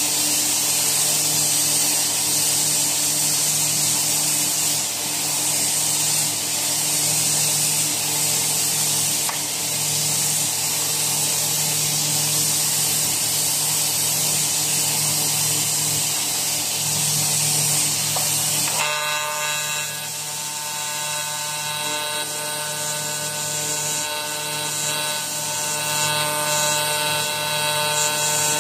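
Steady mechanical hum and hiss of shop machinery. About two-thirds of the way in, a TIG welding arc on aluminum strikes and runs with a steady, many-toned electric buzz.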